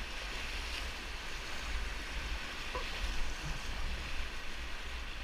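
Steady rush of whitewater in a river rapid, with a low, fluctuating wind rumble on the microphone.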